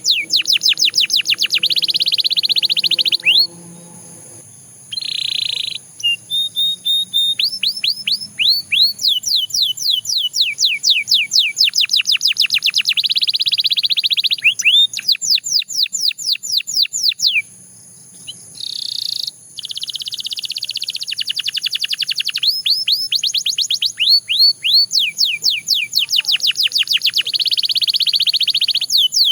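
Belgian canary singing: long rolling runs of fast repeated notes, each run a rapid series of quick pitch sweeps, with a couple of short breaks between phrases.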